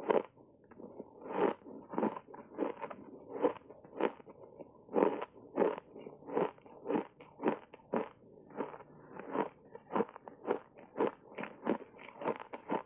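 Dry block ice coated in matcha and milk powder being bitten and chewed. It is a steady run of sharp, crunchy cracks, about two a second.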